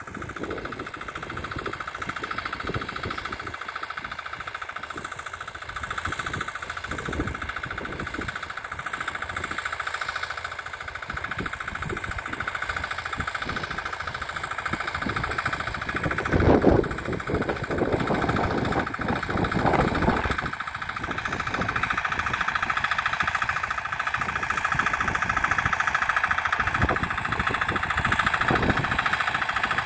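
A two-wheel walk-behind tractor's engine runs steadily under load, pulling an adjustable ridging plough through the soil. There is a brief louder rumble near the middle, and the engine grows somewhat louder toward the end.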